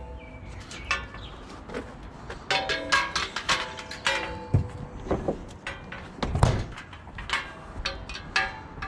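Pieces of scrap metal being picked up and handled, knocking and clanking together. There are a series of sharp knocks, several with a brief metallic ring.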